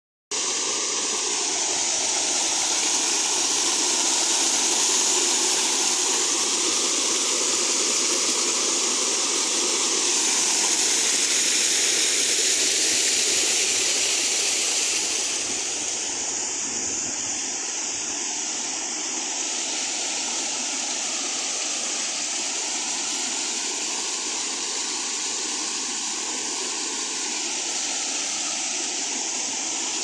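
Small rock waterfall splashing and rushing steadily into a pond, a little quieter after about fifteen seconds.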